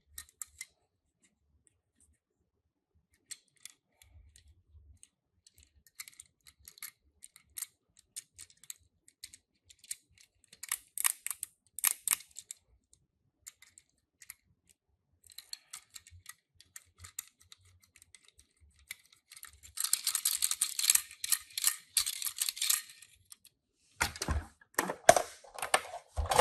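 Scattered clicks, taps and light rattles of die-cast Tomica minicars and plastic parts being handled, with a denser stretch of rattling and rustling about twenty seconds in and louder knocks near the end.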